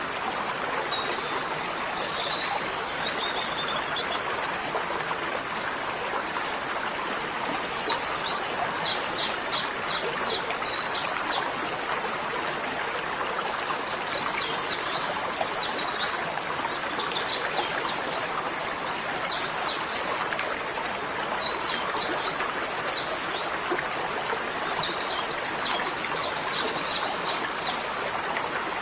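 Steady running water of a stream, with a small bird singing fast runs of short, high, falling chirps in repeated bursts from about eight seconds in.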